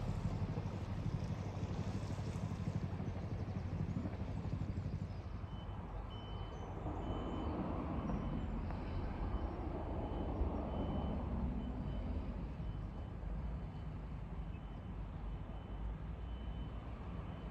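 A motor cruiser's inboard engine idling with a steady low hum while the boat is tied up alongside.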